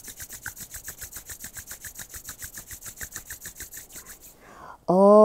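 Palms rubbed briskly together, a rapid even rasping that stops about four seconds in. Near the end a voice starts a loud, steady, held chanted tone.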